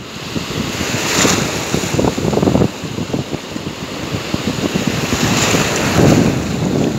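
Sea surf breaking and foamy wash running up over the sand at the water's edge, swelling into a hiss twice, about a second in and again about five seconds in. Wind buffets the microphone underneath.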